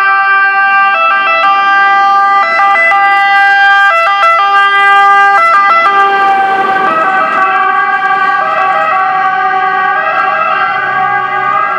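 Italian fire engine's two-tone siren, loud, stepping back and forth between two pitches. About six seconds in, the pitch drops slightly as the truck passes, and the siren carries on as it drives away.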